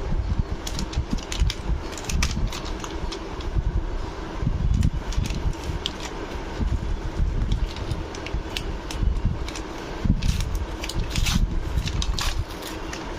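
A small plastic cleaning-brush kit and its packaging being handled and opened: irregular clicks and rustles over a steady low rumble of handling noise.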